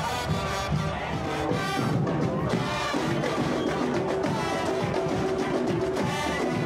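Carnival parade band playing: marching drums keep a steady beat under trumpets and other brass.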